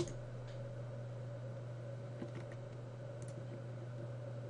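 Computer mouse clicks: one sharp click at the start, then a few faint clicks, over a steady low electrical hum.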